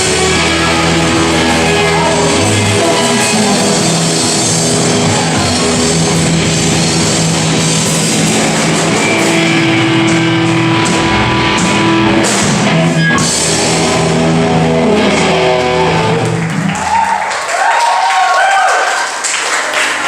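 Live rock band with electric guitars, bass and drums playing a rock-and-roll cover with singing. The full band drops out about three-quarters of the way through, leaving thinner wavering sounds.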